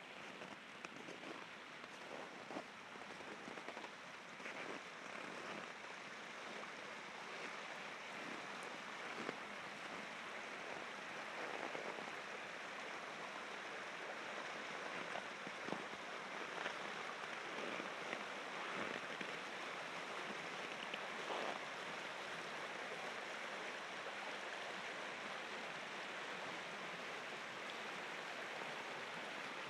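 Steady rushing of river rapids, growing slightly louder, with scattered short crunches in the first part.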